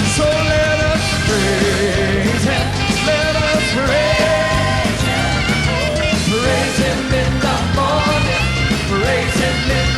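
Upbeat gospel praise music: a band with piano and a steady beat behind voices singing.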